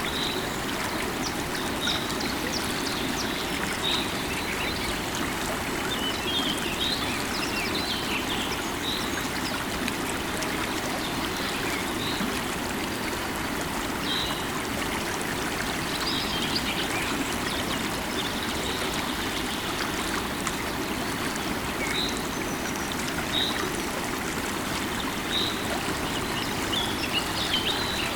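A river of running water rushing steadily, with small birds chirping over it: short high chirps every second or two and a few quick twittering runs.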